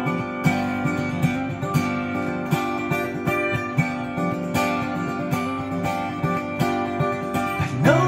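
Acoustic guitar strummed in a steady rhythm of chords, an instrumental passage without singing.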